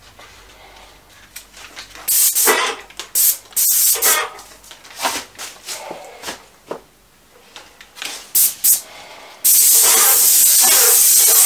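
Graco 495 ST Max II airless paint sprayer gun spraying paint in several short bursts, then one long steady pass near the end. The pressure is set low enough that the spray pattern leaves a tail.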